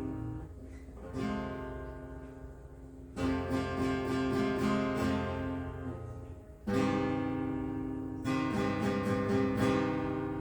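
Acoustic guitar strumming chords, each chord left to ring and fade before the next; fresh strums come about a second in, three seconds in, and twice more near the end.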